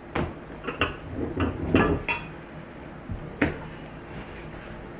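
Several sharp clinks and knocks over the first three and a half seconds as glass measuring cups and tools are handled and set down on a wooden workbench.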